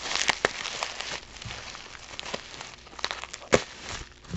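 Plastic bubble wrap crinkling and rustling as it is handled and unwrapped: a dense crackle for about the first second, then sparser crinkles with one sharp crackle near the end.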